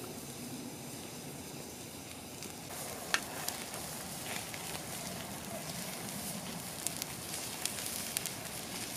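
Turkey shashlik sizzling over a campfire. The sizzle grows fuller about three seconds in, with scattered sharp pops and crackles from then on.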